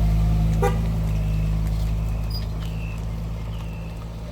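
A vehicle engine running with a steady low hum that fades gradually as it pulls away. Faint bird chirps come through now and then.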